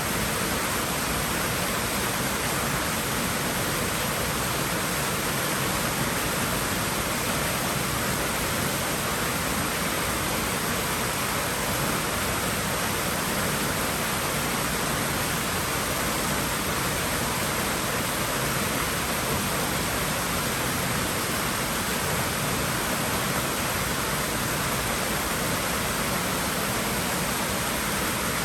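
Swimming-pool water running steadily, a constant even rush with no breaks.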